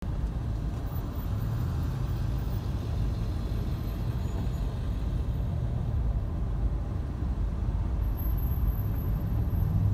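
Steady low rumble of a car's engine and tyres heard from inside the cabin while rolling slowly in freeway traffic.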